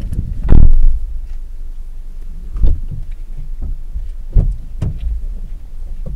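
Low wind rumble on a parked car, with four dull thumps, the loudest about half a second in and two close together near the end.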